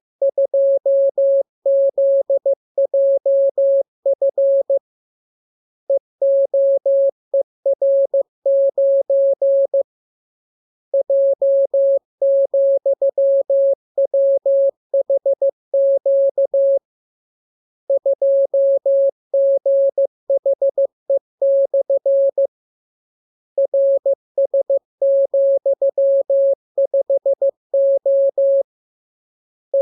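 Morse code (CW) receiving practice: a single steady mid-pitched tone keyed rapidly in dots and dashes. It comes in runs of characters separated by pauses of about a second, as in a practice radiogram.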